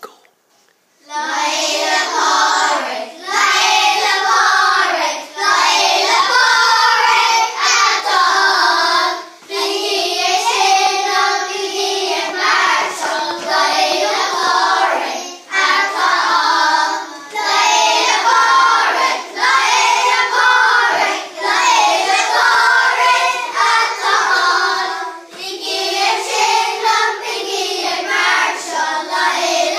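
A group of young children singing a song together, starting about a second in and going on in phrases with brief breaths between them.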